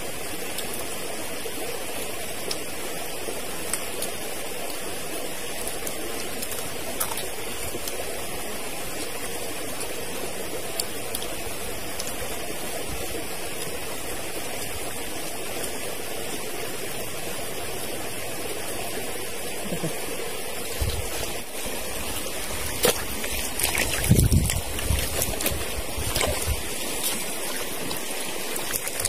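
Mountain stream running steadily. About three-quarters of the way through come a cluster of knocks and thumps, the loudest moments.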